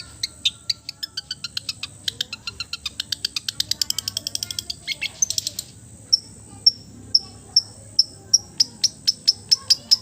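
Songbird singing. A rapid chatter of chips speeds up over the first few seconds and ends in a short dense burst. It then gives a series of sharp, high, down-slurred notes, about two a second, that quicken near the end.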